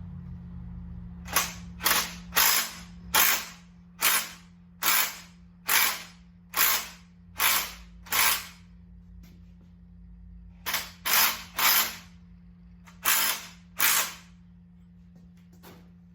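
Ratchet wrench being swung back and forth to turn the forcing screw of a harmonic balancer puller, a rapid burst of pawl clicks on each stroke. Ten strokes come in a steady rhythm, then after a short pause five more.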